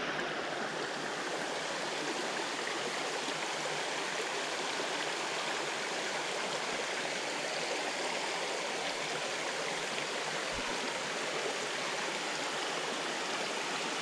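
Creek water flowing: a steady, even rush of running water.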